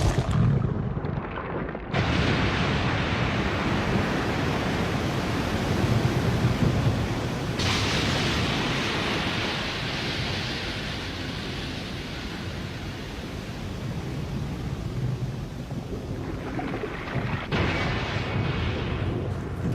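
Neon Genesis Evangelion anime sound effect for Lilith: a sustained wash of deep rumbling noise that starts abruptly about two seconds in, with a brighter hiss joining after about eight seconds and shifting again near the end.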